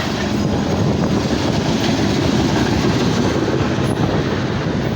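Loaded coal freight train passing close by: a loud, steady rumble of wheels on rail and diesel locomotives, with no horn sounding.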